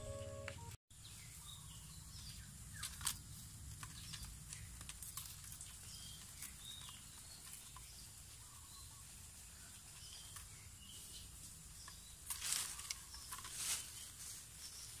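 Music cuts off about a second in, giving way to outdoor ambience with faint birds chirping. A few brief rustling noises come near three seconds in and again, loudest, near the end.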